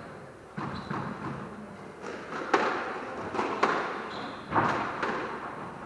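Squash rally: a rubber squash ball struck by rackets and cracking off the court walls, a string of sharp hits roughly a second apart, each ringing briefly in the enclosed court.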